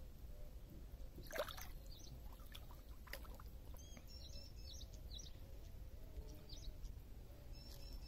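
Quiet pond-edge ambience: a hooked tilapia swirling and splashing briefly at the surface beside the wall, with small birds chirping faintly throughout.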